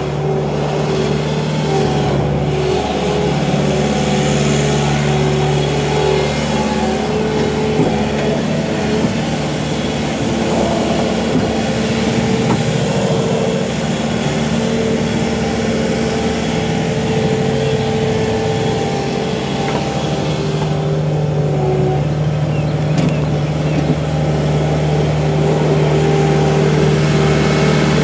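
2010 Bobcat S250 skid steer's diesel engine running steadily under throttle as the machine drives, its pitch dipping and rising a few times with engine speed.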